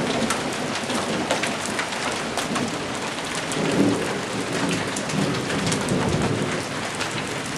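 Small hailstones pelting concrete, soil and garden plants: a dense steady patter full of sharp little clicks from individual stones striking.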